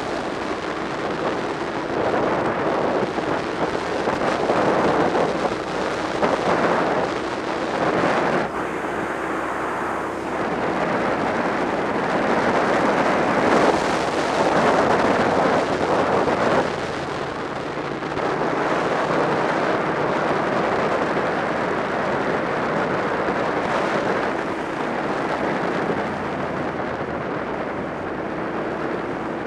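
Wind buffeting the microphone of a camera on a moving motorcycle, over the bike's engine running at road speed. The rumble swells and eases every few seconds.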